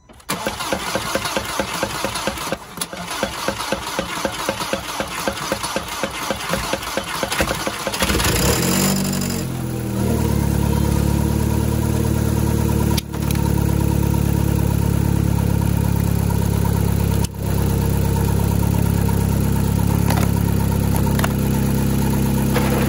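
Volkswagen Mk5 GTI's 2.0 turbocharged FSI four-cylinder (BPY) cranking on the starter for about eight seconds, then catching, revving up briefly and settling into a steady idle: its first start after a big-turbo conversion.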